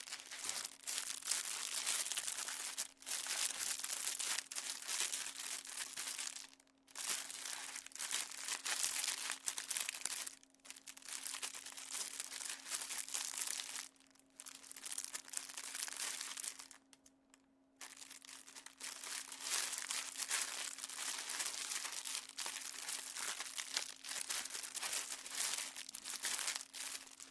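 Plastic being crumpled and crinkled in dense crackling bursts, with a few short pauses, the longest about a second. A faint steady hum sits underneath.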